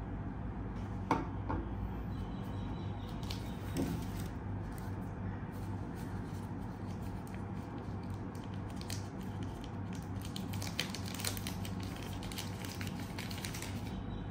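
Thin plastic protective film crinkling as it is handled and peeled off a small camera accessory, thickest in the second half, with a couple of light clicks in the first few seconds. A steady low hum runs underneath.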